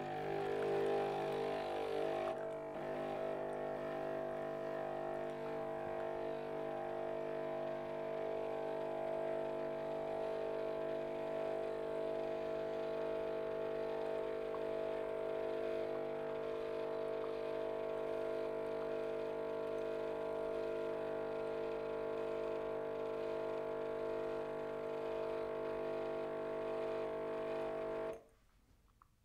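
Expressi Wave (K-Fee) capsule coffee machine's pump running with a steady droning hum as it rinses a large cup of plain water through, with no capsule in, on its first use. It cuts off suddenly near the end.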